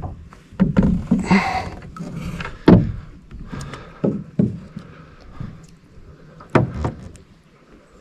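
Oars knocking against a small rowing boat as it is worked on the water: a handful of sharp knocks at irregular intervals, with a short swish of water about a second in.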